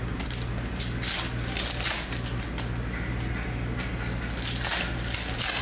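Foil trading-card pack wrappers crinkling and tearing as hands work a pack open, in several sharp crackly bursts, over a steady low hum.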